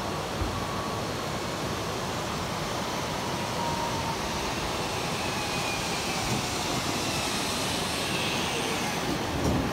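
Zip-line trolley running along the steel cable: a steady rushing whir with faint whines that slowly fall in pitch.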